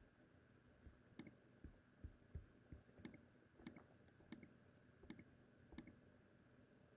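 Faint clicking of a computer mouse, about ten short clicks spaced irregularly half a second to a second apart.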